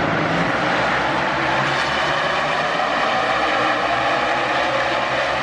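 A field of NASCAR Cup Series stock cars at full throttle taking the green flag, many V8 engines blending into one loud, steady sound.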